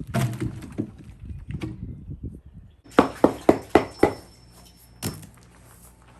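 Rustling and handling noise, then five sharp knocks in quick succession about three seconds in, and one more a second later.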